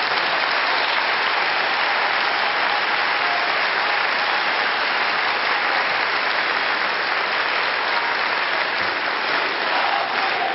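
Large audience applauding: dense, steady clapping from a packed hall.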